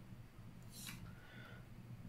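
Near silence: a faint steady low hum of room tone, with one brief soft hiss about a second in.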